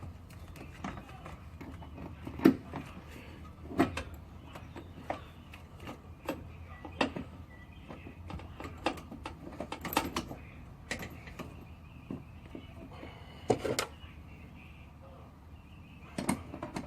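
Hand tools clinking and knocking irregularly against metal as a socket wrench on a long extension works the accelerator cable's fasteners, with a few louder knocks.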